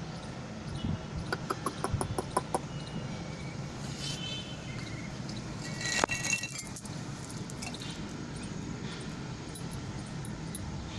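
Metal ring and chain clasp on a puppy's collar clinking in a quick run of small clinks early on, then a few short high squeaks and a single sharp knock about six seconds in.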